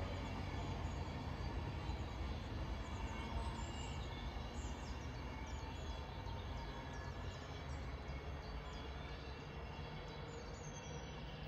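Low steady hum of an Avanti West Coast Class 390 Pendolino electric train at the platform, slowly fading, with small birds chirping over it.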